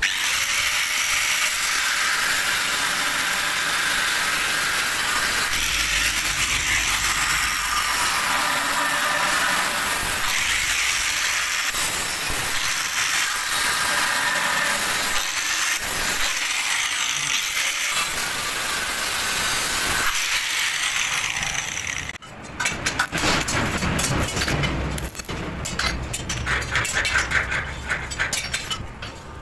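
Angle grinder with a cut-off disc running steadily against steel for about twenty seconds, then stopping. Irregular metal knocks and clanks follow.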